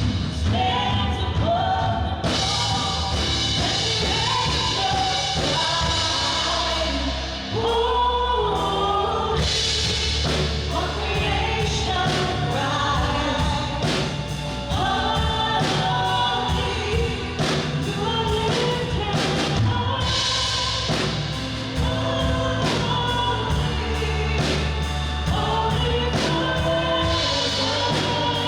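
Worship band and congregation singing a song with drums, steady and continuous.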